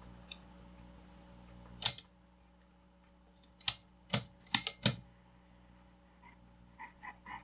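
Sharp clicks on a bench: one about two seconds in, a quick cluster of four or five a little later, then a few softer ticks near the end, over a faint steady hum whose lowest part drops away at the first click.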